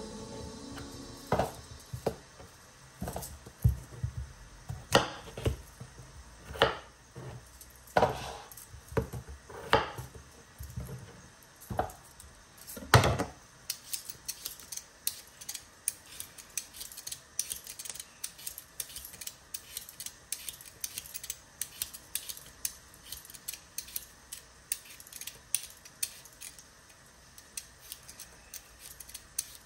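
Chef's knife cutting a peeled potato on a bamboo chopping board: scattered knocks as the blade meets the board, the loudest about 13 seconds in. After that, a Y-shaped vegetable peeler scraping the skin off a potato in quick, short, repeated strokes.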